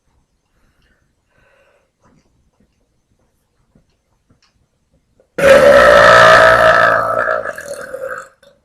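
A woman's long, loud burp that starts suddenly about five seconds in and lasts about three seconds. It breaks into a few rough pulses as it trails off.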